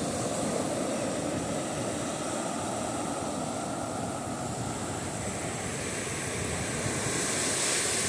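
Small waves breaking and washing up a sandy beach in a steady surf wash, swelling louder near the end as a wave runs in.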